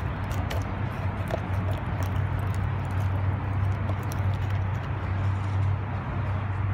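Steady low hum of distant traffic, with faint scattered ticks.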